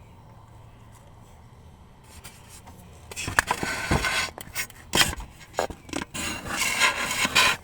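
Pokémon trading cards being handled, sliding and rubbing against each other and the surface in a run of irregular scraping strokes that starts about three seconds in.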